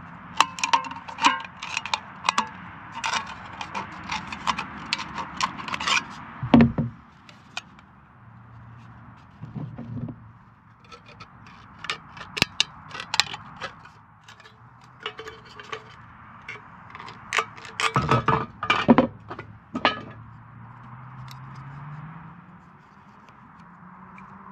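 Tin snips cutting a strip from a thin metal food can: repeated sharp metallic snips and crunches with the can rattling. They come in several bursts, the loudest crunch about six and a half seconds in, with quieter pauses between.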